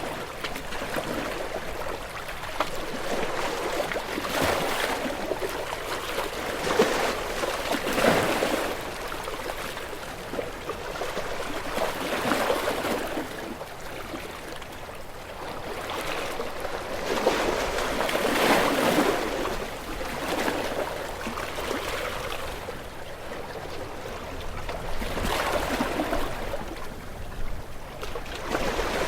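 Gentle ocean waves washing onto a shore, each surge swelling and fading every few seconds.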